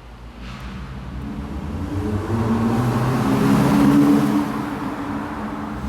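Honda Accord 2.4-litre four-cylinder engine, fitted with a new aftermarket cold air intake, starting about half a second in and revving up, its sound building to a peak around four seconds in before easing off slightly.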